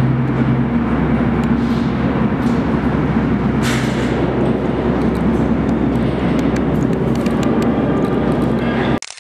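NYC Subway R46 train approaching through a curved tunnel: a loud, steady rumble with a low hum and a brief hiss partway through. The sound cuts off abruptly near the end.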